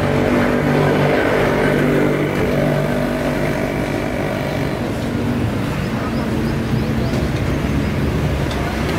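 An engine running steadily with a constant low hum, strongest in the first few seconds, over street background noise.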